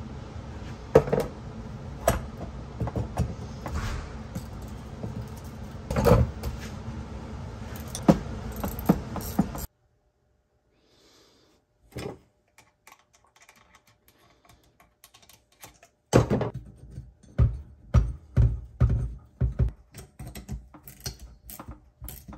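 Small metal clinks and taps as the parts of an air-hydraulic pump's air motor are handled and fitted on a wooden workbench, over a steady background hum that cuts off abruptly about ten seconds in. In the last several seconds comes a run of quick metal clicks and knocks as bolts on the motor housing are tightened with a ratcheting wrench.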